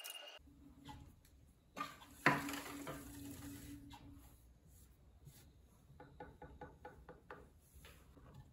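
Handling knocks and pats as lumps of soft clay are pressed onto a metal potter's wheel head to hold an upside-down bowl for trimming: two knocks about two seconds in, the second louder with a brief ring, then a run of faint ticks.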